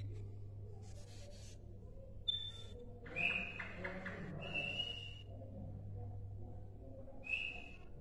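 Caged sikatan londo, a flycatcher, giving short high whistled call notes, four of them spaced a second or more apart, one with a quick chatter beneath it. A steady low electrical hum runs underneath.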